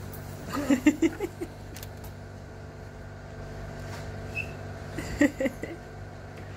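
A steady low background hum, with two short bursts of a toddler's vocal sounds, about half a second in and again about five seconds in.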